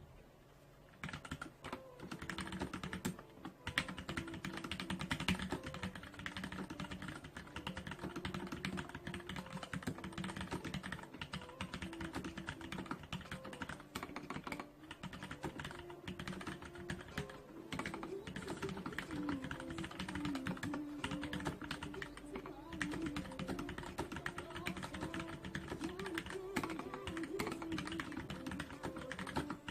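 Continuous fast typing on a NINJA87 RGB mechanical keyboard with Gateron Yellow linear switches: a dense clatter of keystrokes that starts about a second in.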